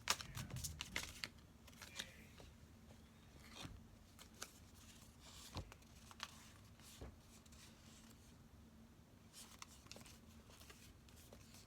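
Faint clicks and rustles of tarot cards being handled, as one deck is put away and another taken up. The clicks are densest in the first second or two, then come as sparse single taps.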